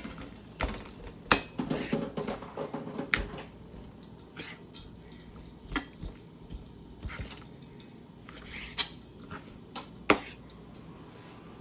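Knife and cutting-board knocks and the clatter of kitchen utensils as raw chicken is cut up: irregular sharp clicks, busier in the first few seconds and sparser later.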